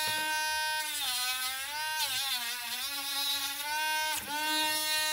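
Cordless rotary tool spinning a sanding band against a plastic toothbrush handle: a steady high whine whose pitch sags and recovers several times as the band bites into the plastic.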